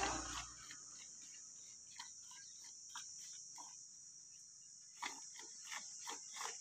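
Kankrej cow being milked by hand into a steel pail partly full of milk: short squirts of milk hit the milk in the pail, singly at first and then a quicker run near the end.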